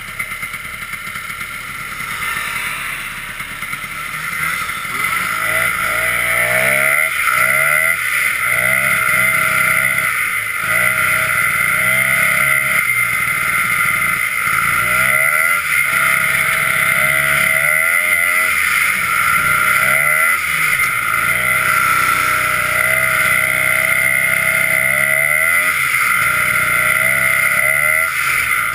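Snowmobile two-stroke engine running under way, picking up speed over the first several seconds, then holding a steady high pitch with small rises and dips in revs.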